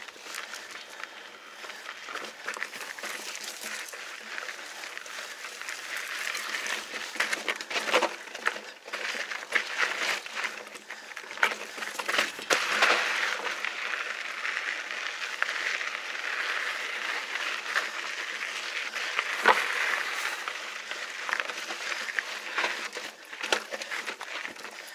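Mountain bike riding over rough slickrock: a steady rushing noise broken by frequent rattles and knocks from the bike jolting over the rock, the sharpest knock about two-thirds of the way through.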